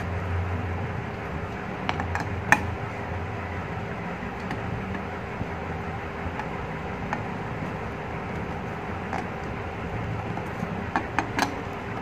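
Metal clinks of a T-handle socket wrench working the cover nuts of an LPG regulator, tightening the cover that clamps its rubber diaphragm. A sharp clink comes about two and a half seconds in and a quick run of three near the end, over a steady low hum.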